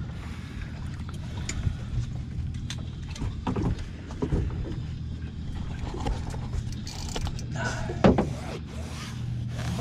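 Boat's outboard motor idling steadily under light, scattered clicks and knocks, with one sharp knock about eight seconds in.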